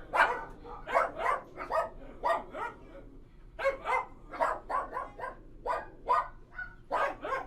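Dogs barking in a kennel: short, sharp barks come in quick irregular runs, with a brief lull near the middle.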